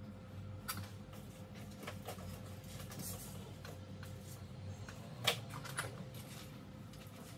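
Steady low electrical hum with a thin higher tone, and a scattered series of faint clicks and taps of small objects being handled. The sharpest tap comes about five seconds in.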